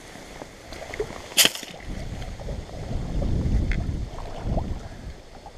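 Wind buffeting the microphone, a rumble that swells and fades, with one sharp click about a second and a half in.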